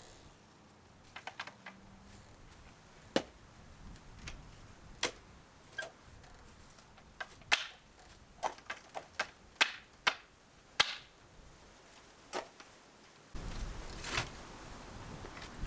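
Scattered sharp knocks and clicks of hand carpentry work, at irregular intervals. Near the end a steady low rumbling background cuts in suddenly.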